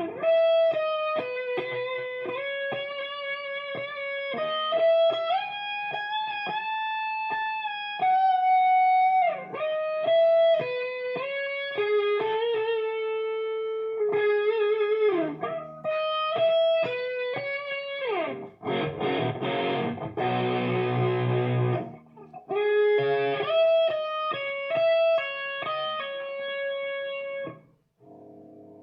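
Electric guitar played through a homemade guitar amplifier: a single-note melody with sliding notes, then strummed chords about two-thirds of the way through, then more single notes before the playing stops near the end.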